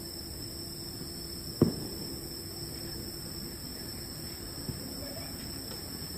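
Distant fireworks shells bursting: one sharp boom about a second and a half in and a fainter one near the end, over a steady background hiss.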